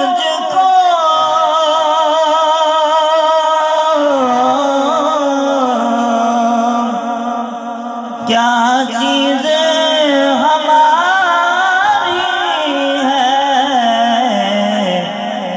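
A man singing a naat in long, drawn-out melismatic notes that waver with vibrato, amplified through a sound system. A fresh phrase begins about halfway through.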